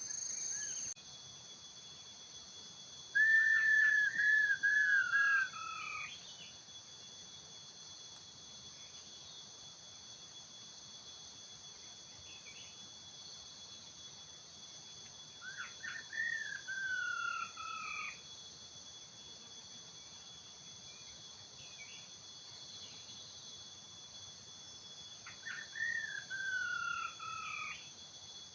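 A laughingthrush calling three times, each a whistled phrase that falls in pitch over about two seconds, with a short higher note alongside. Under it runs a steady high drone of insects.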